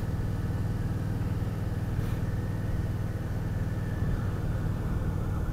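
Cruiser motorcycle engine running at a steady speed while riding, a low even drone that holds one pitch, with road and wind noise.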